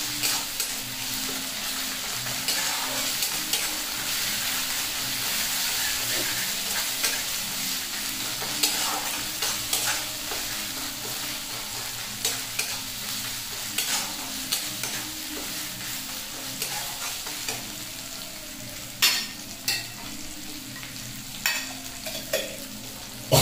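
Chopped onions and ginger-garlic paste sizzling as they fry in oil in a steel kadai, with a steel spatula scraping and clinking against the pan as they are stirred. A few sharper metal clinks come near the end.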